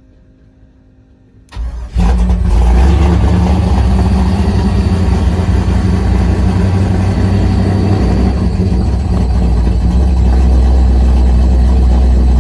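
A Chevy C10 pickup's fuel-injected V8, on a Holley Terminator X, is cranked briefly and starts at once about a second and a half in. It is already warm, and it settles into a steady, loud idle.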